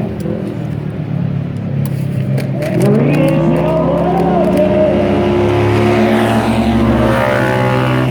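Off-road vehicle engine running at low revs, then revving up sharply about three seconds in and holding high revs under acceleration. A brief patter of short clicks comes just before the rev-up.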